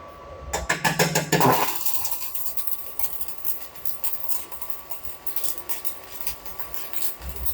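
Stick (MMA) welding arc crackling and sputtering as a 3.25 mm electrode burns at about 98 amps on a Stayer Super Plus 200 A inverter welder. The crackle starts about half a second in and goes on steadily, with a thin steady high tone underneath.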